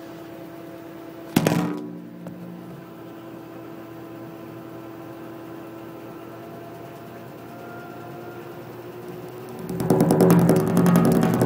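Washing machine running its test cycle with a steady motor hum and a single loud knock about a second and a half in. Near the end the machine starts knocking and rumbling hard with rapid, heavy blows as it vibrates on its rubber feet.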